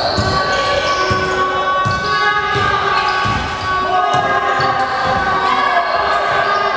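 A basketball being dribbled on a sports-hall floor, with uneven thuds during live play. Voices and background music sound in the large hall.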